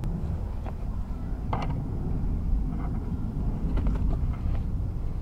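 A steady low outdoor rumble, with a few faint knocks and clicks from the camera being handled and moved.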